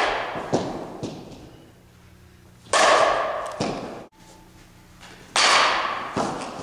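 Softball bat hitting tossed balls three times, about two and a half seconds apart, each crack echoing in a large hall. A softer knock follows each hit about half a second later.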